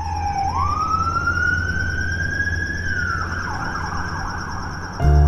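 Emergency vehicle siren wailing across a city at night: one slow wail that dips, climbs to a high held tone and then falls away, over a steady low city hum. Piano and double bass come in just before the end.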